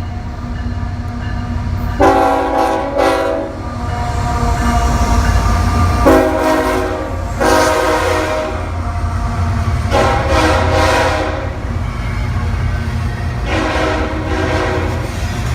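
Train horn sounding four blasts, the second the longest, over the steady low rumble of a passing train.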